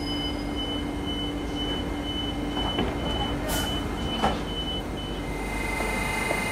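Class 378 Capitalstar electric train's door-closing warning beeping about twice a second as its doors slide shut, with a hiss and then a knock as they close about four seconds in.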